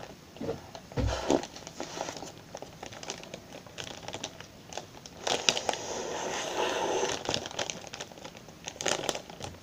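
Plastic snack bag and Ziploc bag crinkling and rustling in the hands as they are folded and tucked closed, with a dull bump about a second in and a denser spell of crinkling in the middle.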